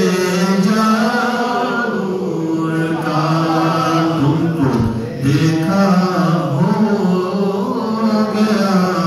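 A man's voice chanting a devotional Islamic recitation in long, held, melodic notes.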